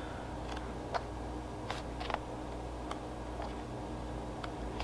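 Magazine pages being turned by hand: a handful of short, light paper flicks and taps over a low steady hum.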